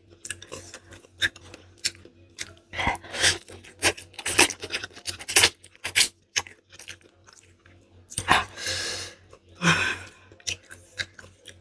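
Spicy Korean instant noodles being slurped and chewed by hand-fed mouthfuls: many short wet mouth clicks and smacks, with longer slurps, the longest about eight seconds in.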